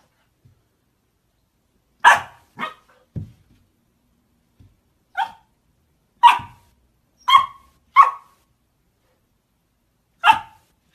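A puppy giving short, sharp barks, seven in all at uneven intervals, some close together and some a couple of seconds apart. A soft low thump comes just after the second bark.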